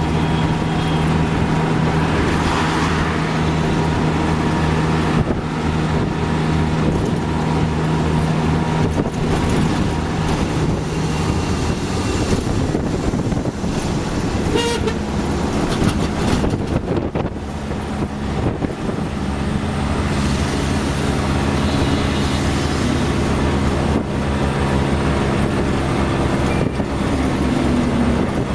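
Auto-rickshaw's small engine running under a ride, heard from inside the open cabin amid road and traffic noise. Its note changes about eleven seconds in and again about two-thirds through as the speed varies. A brief horn toot sounds about halfway.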